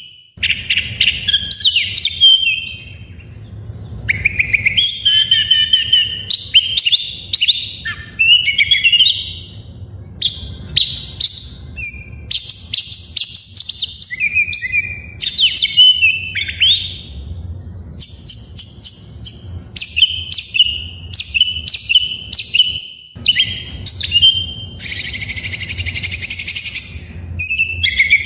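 Oriental magpie-robin (kacer) singing a long, varied song of loud high whistled phrases and quick chattering notes, with a harsh buzzy trill lasting about two seconds near the end.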